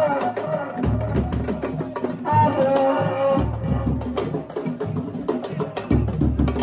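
Live drum and percussion music: rapid, dense strikes with deep bass drum beats coming in and out, and a held, pitched melody line sounding above the drums.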